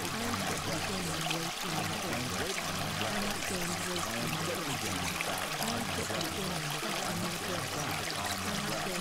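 Steady running water, like a stream or trickle, with a low, indistinct voice murmuring beneath it: the masked affirmations of a subliminal track.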